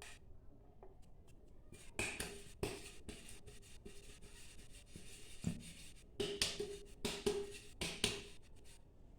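A metal cake tin being tapped and knocked: a couple of hits about two seconds in, then a quick run of knocks later, some ringing briefly. This is typical of flour being shaken and tapped around the tin's greased inside.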